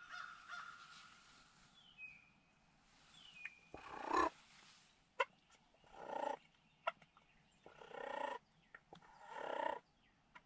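Faint turkey calling: a few short, stacked yelping bursts spaced a second or two apart, with several sharp single notes between them.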